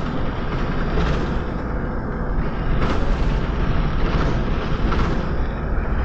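Volvo B7RLE bus on the move, heard from inside the passenger cabin: a steady low rumble from its six-cylinder diesel engine and the road, with a few brief, louder rattling surges.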